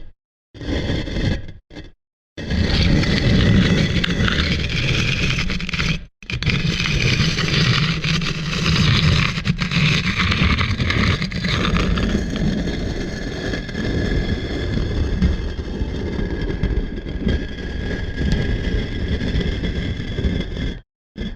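A heavy stone block dragged and grinding across stone, a deep rough scrape. Two short scrapes come first, then a long continuous grind with one brief stop about six seconds in.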